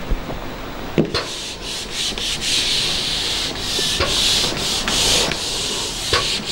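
A whiteboard eraser rubbing across a whiteboard, wiping off the writing in a run of hissing back-and-forth strokes that starts after a short knock about a second in.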